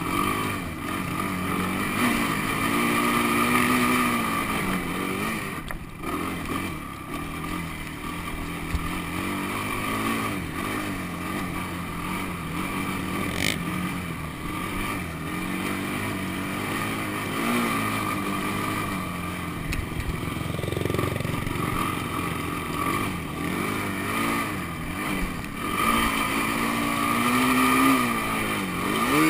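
ATV engine under way on soft sand, its pitch rising and falling repeatedly as the throttle is opened and eased.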